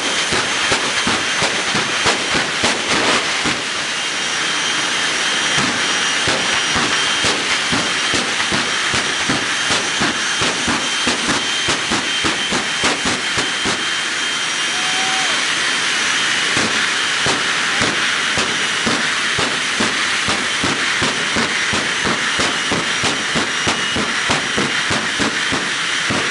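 Jet engines of jet-powered drag-show 'trains' running hard: a loud, steady hiss full of crackle, with a thin high whine through it.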